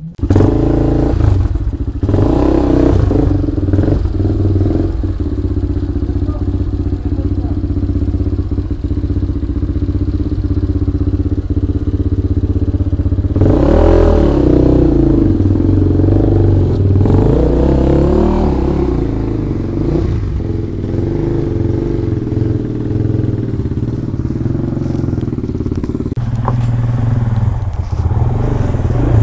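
Dirt bike engine running, revved up and back down twice in the middle of the stretch.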